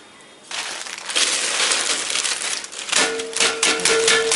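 Rustling and crunching as chutney ingredients and grated coconut are tipped and pushed by hand into the steel drum of a stone wet grinder, with small clicks against the metal. A steady hum joins about three seconds in.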